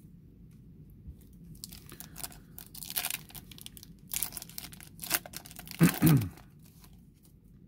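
Foil trading-card pack wrapper being torn open and crinkled by hand: a run of crackling rips starting about two seconds in, loudest around six seconds in, then stopping.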